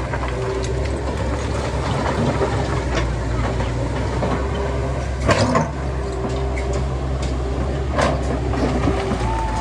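Heavy diesel machinery engine running steadily, with a sharp metallic clank about five seconds in and another near eight seconds.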